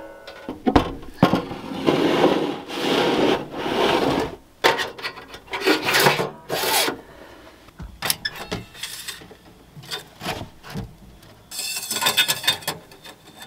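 Sheet metal scraping and sliding over metal and wood in a few long rasping strokes, with scattered clicks and knocks between them, as a wood stove's sheet-metal tray is slid into place and parts are fitted.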